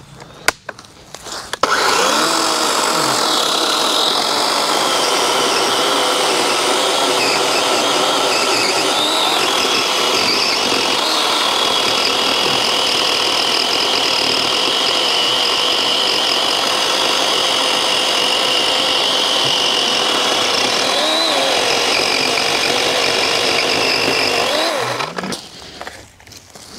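DeWalt DCCS620 12-inch 20V brushless battery chainsaw cutting through a fallen log. The motor and chain run steadily, and their pitch dips briefly a few times as the chain loads up in the wood. The saw stops near the end.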